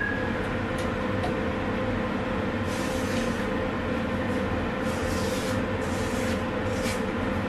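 Electric tilt-head stand mixer running steadily, its motor humming as the beater creams cake batter. Brief scraping sounds come over the top a few times.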